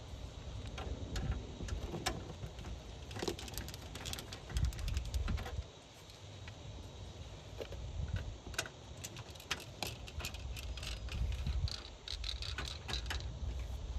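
Scattered small metallic clicks and rattles with a few low thumps, from screws being worked out of a desktop PC case and the case being handled.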